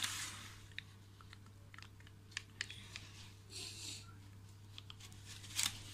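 Plastic pizza-cutter wheel rolling through baked pizza crust: faint, scattered crunches and clicks, with a couple of soft scraping stretches, over a low steady hum.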